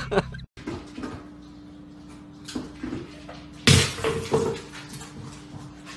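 Dry kibble and a plastic slow-feeder bowl clattering on a tile floor as a dog eats, with small rattles, then a sharp loud clatter a little past the middle and a few smaller ones after it. A steady low hum runs underneath.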